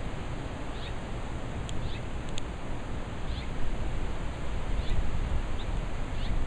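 Gusty wind rumbling on the microphone, growing stronger toward the end, over a steady hiss, while a bird gives short, high chirps about once every second or so.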